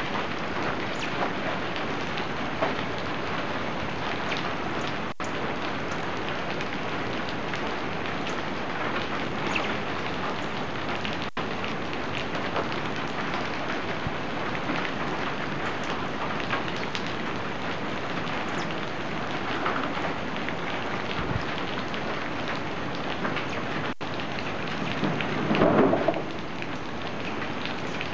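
Steady rain falling on rainforest foliage and a corrugated metal roof, a dense hiss of countless drops. Near the end there is a louder swell of noise lasting about a second.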